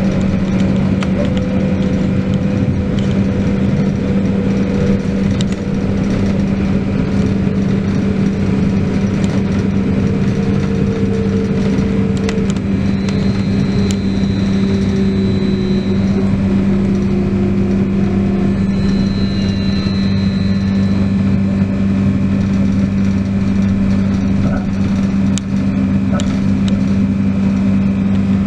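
Trolleybus running between stops: a steady electric hum with a fainter motor whine that slowly falls in pitch, and a short high whine twice around the middle.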